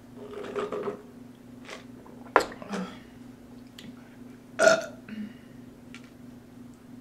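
A woman sips a drink through a straw, a sharp knock sounds about two and a half seconds in, and then comes one short, loud burp a little past the middle.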